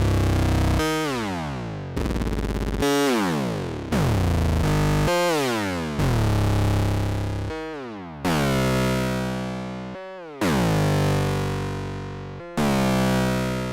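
Elektron analog synthesizer playing a preset patch: a series of pitched notes, a new one about every two seconds, each starting bright with its filter closing down as it fades.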